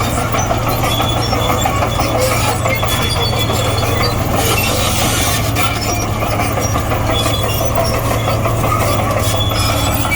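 Komatsu D58E bulldozer's diesel engine running steadily under load, with clanking and short squeals from its steel tracks as it pushes soil.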